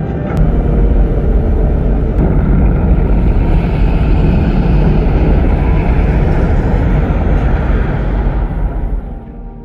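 Sound effect from a film soundtrack: a loud, deep rumble with a rushing noise on top, fading out about nine seconds in.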